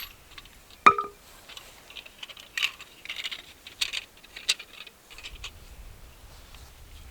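A sharp metallic clink with a brief ring about a second in, followed by a scatter of small light clicks and rattles, then fainter handling.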